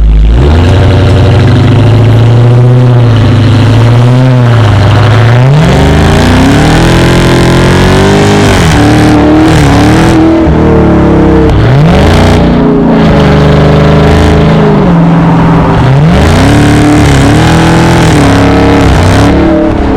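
Supercharged 6.2-litre Hemi V8 of a 707-horsepower Dodge Charger Hellcat, very loud. It runs low and uneven for the first few seconds, then is revved up and let fall back several times, about six, eleven and sixteen seconds in.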